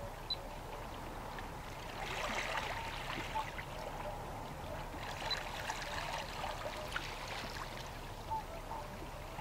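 Water trickling and lapping, swelling louder from about two seconds in until near the seven-second mark, with faint short high blips over it.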